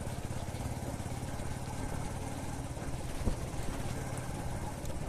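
Motorcycle engine running steadily while the bike is ridden, with a single short thump a little over three seconds in.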